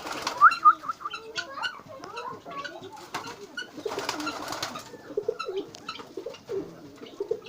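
Ornamental cage birds calling: many short, quick chirps with small clicks, joined from about five seconds in by low, repeated cooing.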